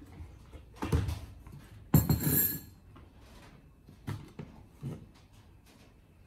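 Kitchenware being handled: a knock about a second in, a louder clinking clatter of glass and utensils about two seconds in, then a few softer knocks.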